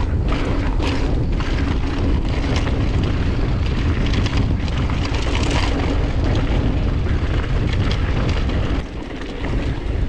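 Wind buffeting the microphone of a camera on a mountain bike running fast down a dusty dirt trail, mixed with tyre roar and the rattle of the bike over the rough ground. The rush is loud and steady, easing briefly near the end.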